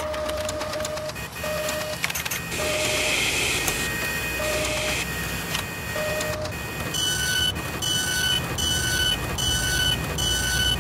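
Sound effects for an animated machine-built logo: a steady mechanical running noise with a few short beeps and a hiss in the first half. From about seven seconds in comes a regular run of two-tone electronic beeps, about one and a half a second.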